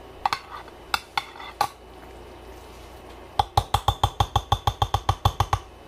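A utensil clinking against a glass baking dish: a few separate clinks, then about two seconds of quick, even tapping at some six taps a second, each with a short glassy ring.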